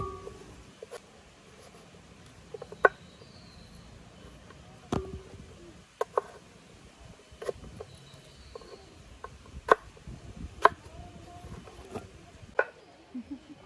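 Chunks of raw breadfruit being cut and dropped into a cooking pot, a sharp knock every second or two with a short ring after some of them.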